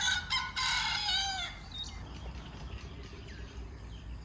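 A rooster crowing once, a call of about a second and a half that drops in pitch at its end. Small birds chirp faintly after it.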